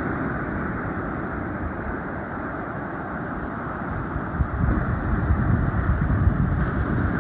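Strong wind buffeting the microphone over a steady rush of rough surf. The low gusting grows louder and more uneven about four seconds in.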